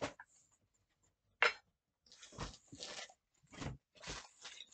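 Handling of a boxed Funko Pop figure: a sharp click at the start, a louder knock about one and a half seconds in, then several short rustling scrapes of cardboard and plastic.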